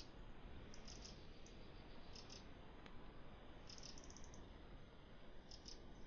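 Quiet pine-forest ambience: a soft hiss with faint, high, thin chirps in short clusters, including a quick run of about eight about four seconds in.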